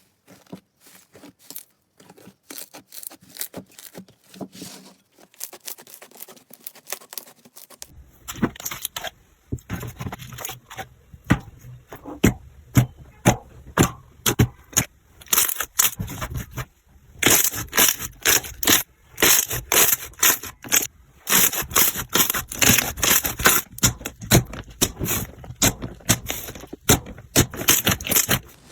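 Slime being squished and pressed, a dense run of sharp crackles and pops; sparser and quieter at first, much louder and denser from about eight seconds in.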